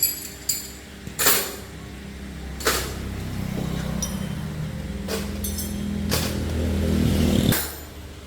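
A motorcycle engine running steadily for about six seconds, then cut off suddenly, with several sharp metallic clinks.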